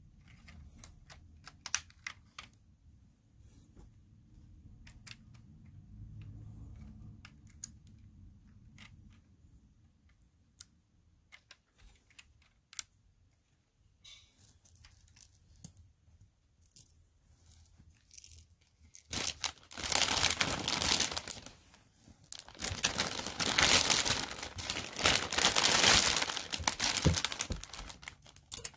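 Small plastic Lego pieces being handled, with scattered light clicks and taps. About two-thirds of the way through this gives way to two loud stretches of rustling and rattling, split by a short pause.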